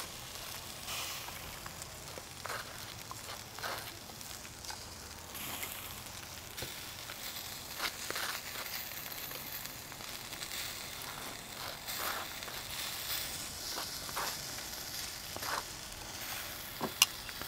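American Wagyu burgers sizzling steadily on the charcoal grate of a Nomad portable grill, with a few faint short clicks and scrapes from a knife spreading mustard on buns.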